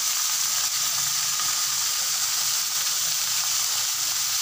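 Oil sizzling steadily in a kadhai on full flame as handfuls of freshly washed, chopped fenugreek and spinach leaves are dropped onto frying potatoes. The greens hold a lot of water.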